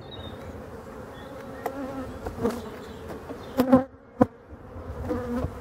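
Honeybees buzzing steadily around an open honey super, with a few sharp wooden knocks and clicks from a metal hive tool prying at the frames, the loudest between three and a half and four and a half seconds in.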